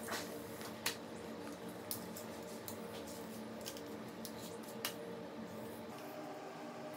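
Coloured pencils being handled in their case: a few sharp clicks and light clatter as pencils are picked out, the loudest a little under a second in and near five seconds, over a steady low hum.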